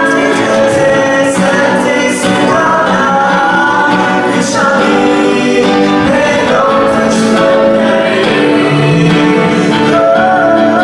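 A mixed group of young men and women singing a Kachin Christian worship song together into microphones over an amplified sound system, with acoustic guitar accompaniment.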